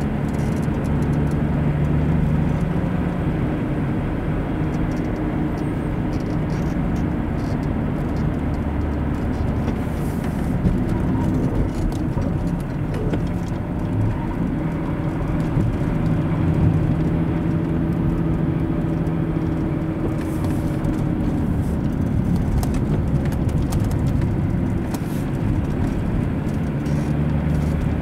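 A car driving along a road: engine and tyre noise as a steady hum, with the engine's pitch shifting up and down a little now and then.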